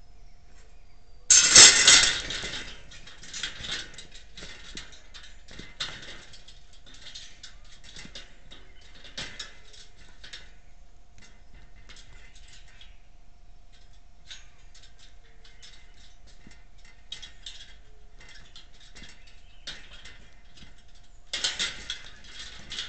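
Wire-mesh cage trap rattling and clattering as trapped coatis scramble against it. A loud burst of rattling comes about a second in, followed by scattered clinks and scrabbling, and another burst of rattling near the end.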